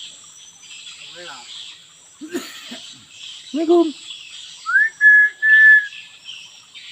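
Hill myna mimicking speech with a short "Assalamualaikum" about three and a half seconds in, then giving a loud whistle that rises and then holds steady, in two parts. Insects buzz steadily throughout.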